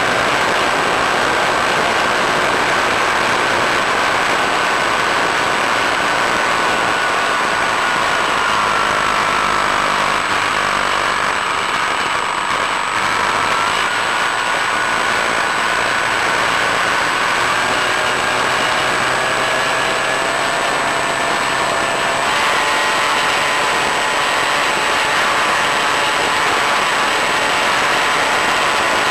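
Multiplex Easystar's electric motor and pusher propeller running in flight, a steady whine over a loud rushing hiss of wind and prop noise. The whine's pitch sags for a few seconds about a third of the way in, then climbs back and rises higher later on as the throttle changes. A constant thin, very high tone runs underneath.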